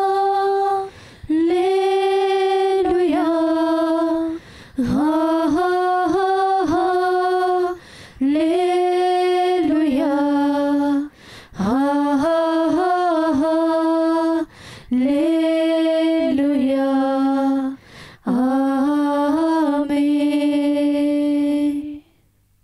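A woman singing a slow melody alone, with no accompaniment heard, in phrases of about three seconds separated by short breaths. The singing stops just before the end.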